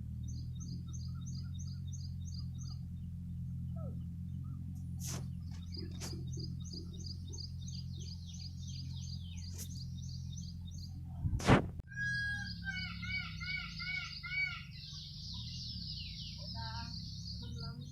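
Birds singing: rapid runs of high chirps, joined about twelve seconds in by a busier chorus of arching, whistled notes, over a steady low hum. A single sharp click stands out near the middle.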